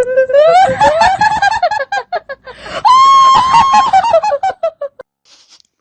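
Staged horror scare sound of a shrieking, cackling voice: a fluttering shriek that climbs in pitch, then a second, louder high fluttering shriek about three seconds in.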